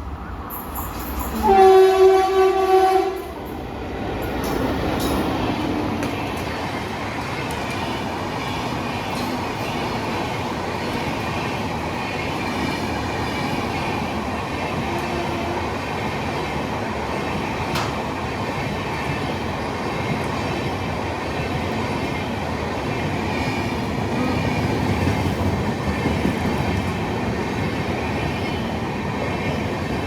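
Locomotive horn sounds one blast of about a second and a half, then a train runs past with a steady rumble of wheels on the rails.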